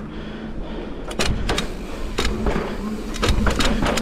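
Mountain bike rolling down a flight of steps: about half a dozen sharp knocks and rattles as the wheels drop off the steps, starting about a second in, over wind rumble on the microphone and a faint steady hum.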